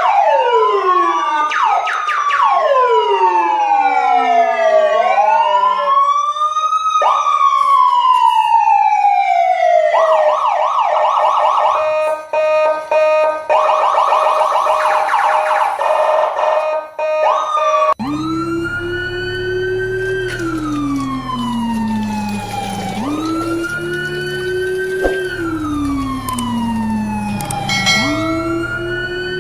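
Several emergency-vehicle sirens wailing at once, their pitches rising and falling across each other. About ten seconds in they change to a fast pulsing warble, and near the middle a different siren takes over with slow falling wails over a low hum.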